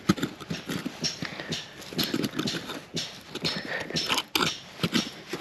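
Small three-pronged metal hand rake scraping and digging through stony soil, with a run of irregular clicks and knocks as its tines strike stones and crystals.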